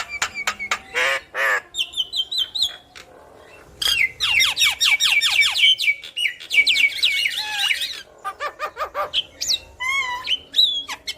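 Javan myna (jalak kebo) singing a varied, harsh chatter of clicks and squawky notes. A dense fast run of rasping notes fills the middle, with a short pause before it and another after it, and whistled rising-and-falling calls follow near the end.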